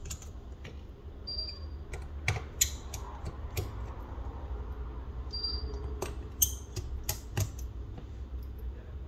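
Scattered sharp clicks and taps of small tools and plastic parts as a Samsung Galaxy A03s phone is handled and pried apart, with a few brief high squeaks, over a low steady hum.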